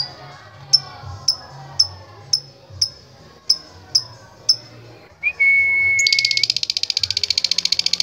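Lovebird calling: short sharp high chirps about twice a second, then a brief steady whistle-like note about five seconds in, breaking into a long, very rapid chattering trill (the lovebird's "ngekek") near the end.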